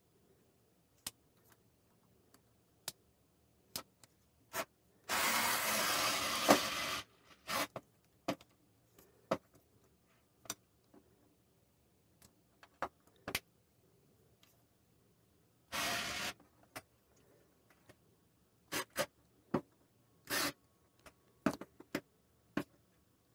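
A screwdriver working the screws of the slow cooker's chrome control-panel housing: scattered clicks and taps of tool on metal and plastic, with a noisy burst of about two seconds some five seconds in and shorter ones near sixteen and twenty seconds.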